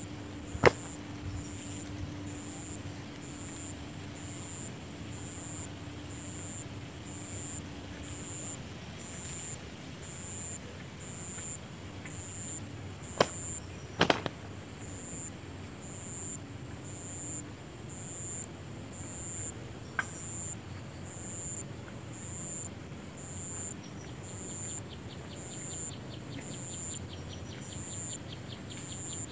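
Insects chirping steadily, a high pulse about three times every two seconds, broken by a few sharp snaps: one about a second in, and two around 13–14 s as a spotted dove flaps its wings at the trap.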